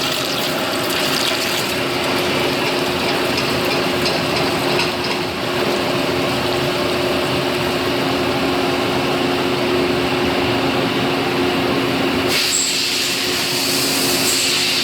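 Large lathe turning a workpiece while a trepanning tool cuts, with coolant flowing: a steady machine hum with two low tones under a hiss. About twelve seconds in, the hiss suddenly gets brighter and stronger.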